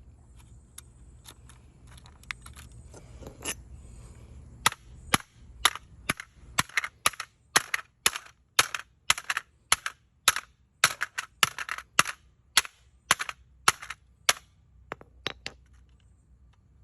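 A smoke alarm's plastic casing being struck hard again and again as it is smashed: sharp blows at about two to three a second. After a few light taps the blows start about five seconds in, then thin out to a few weaker knocks near the end.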